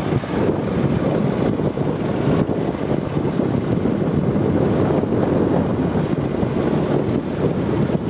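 Small motorboat under way: its engine running steadily, with water rushing past the hull.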